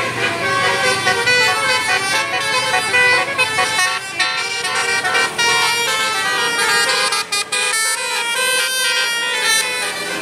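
Telolet basuri bus horn playing a quick melody of short stepped notes on its multi-tone horns, with a brief break about seven seconds in.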